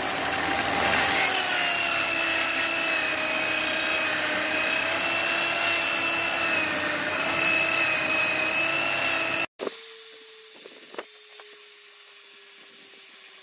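Drill-driven wire wheel brushing rust off a steel brake back shield: the drill motor whines steadily under the scratching of the wire bristles on the metal. About nine and a half seconds in it cuts off abruptly, leaving a much quieter steady hum with a few light clicks.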